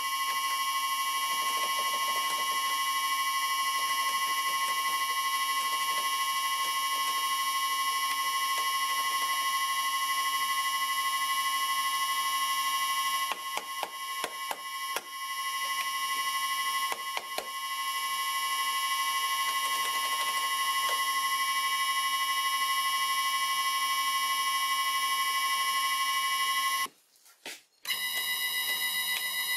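A three-phase electric motor running on an Allen-Bradley variable frequency drive, with a steady high-pitched electrical whine. The whine flickers out a few times about halfway through and cuts out for about a second near the end before coming back. The owner puts these drop-outs down to a switch that isn't good enough.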